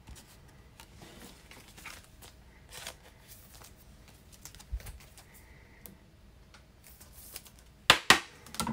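Quiet handling of trading cards and packaging: faint scattered clicks and rustles, then a few sharp, loud clacks near the end.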